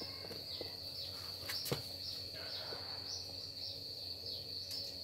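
Crickets chirping steadily in the background, with a faint click and then a single light knock about a second and a half in.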